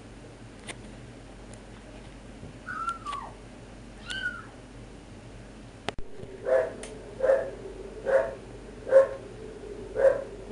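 Brittany spaniel giving two short, high, falling whining calls, then, after a sharp click, a steady run of repeated barks, a little under one a second.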